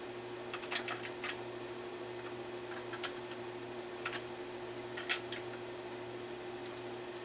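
Steady hum of a running Amana room air conditioner, with a handful of light clicks and taps, most around one second in and then singly about every second.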